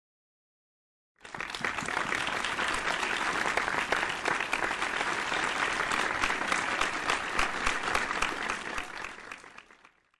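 Audience applauding: dense clapping that cuts in suddenly about a second in and fades out near the end.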